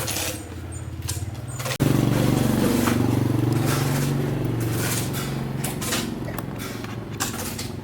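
An engine running steadily. It jumps suddenly louder about two seconds in, then slowly fades.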